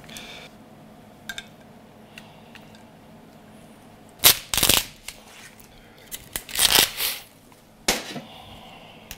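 Cooked lobster shell being handled with gloved hands and set on a ceramic plate: a few sharp clacks and short crunches of shell, starting about four seconds in and loudest around four and a half and seven seconds.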